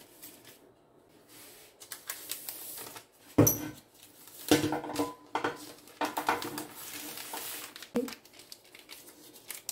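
Baking paper rustling as a sheet of cut dough strips is lifted and laid into a metal oven tray, with a few sharp knocks of the tray on the worktop, the loudest a few seconds in.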